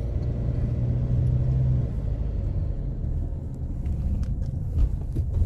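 Car driving along, a steady low engine and road rumble.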